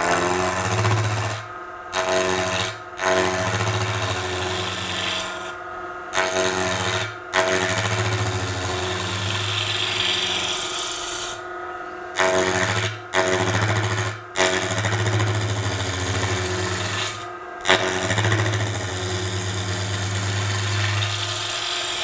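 Spindle roughing gouge cutting a spinning sycamore spindle on a Record Power Coronet Herald lathe: a rough, rasping hiss of shavings over the lathe's steady hum. It breaks off abruptly about eight times for a moment and starts again.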